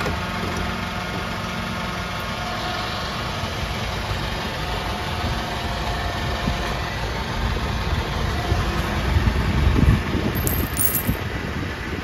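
Car on the move: steady engine and road noise, with heavier low rumbling around nine to ten seconds in and a short high-pitched jingle just after.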